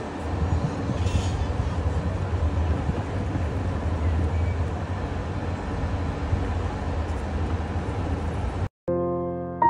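Steady low rumble and hiss of an outdoor city square, with no single sound standing out. It cuts off abruptly near the end and soft piano music begins.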